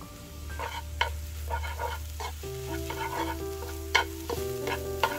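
Food being stirred in a pan, a metal utensil clinking and scraping against it irregularly, with sharper knocks about a second in and near four seconds. Soft background music with held chords plays under it.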